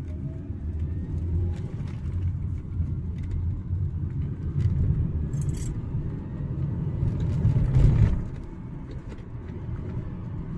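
Supercharged M271 1.8 four-cylinder engine of a Mercedes CLK 200 running and being revved, rising to its loudest about eight seconds in and then dropping back, with a faint high-pitched whine above the low engine sound. The owner says the whine rises and falls with RPM and suspects the alternator (diodes or bearings) or a serpentine-belt idler or tensioner pulley, not the recently serviced supercharger.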